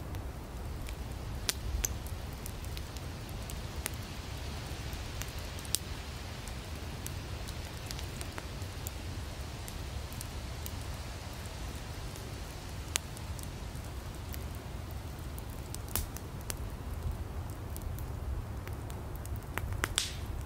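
Campfire of burning firewood crackling: a steady low rumble and hiss of the flames with scattered sharp pops, a cluster of louder pops near the end.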